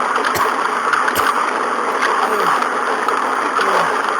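Washing machine running a wash cycle: steady rushing, churning water with a few knocks.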